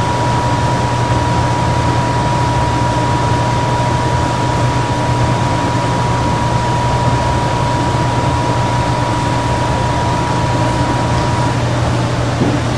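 Steady hiss with a low hum underneath, the background noise of the recording, and a thin steady high tone that cuts off about a second before the end.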